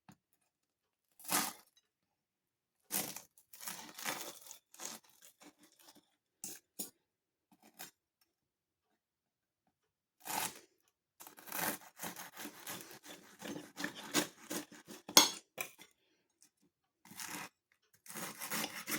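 Crisp, flaky pastry of air-fried pork sausage rolls crunching and crackling under a knife and fork, in short irregular bursts with pauses, busiest in the second half.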